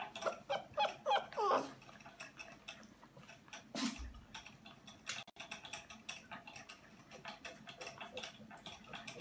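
Puppies licking the sipper tube of a cage-mounted water bottle: a run of quick, uneven clicking ticks from the tube's valve. There are a few short squeaky sounds in the first second or two and a single knock about four seconds in.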